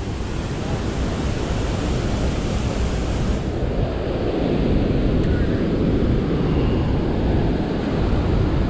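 Steady rush of white water churning out below a concrete weir, with wind buffeting the microphone; the hiss turns duller about three and a half seconds in.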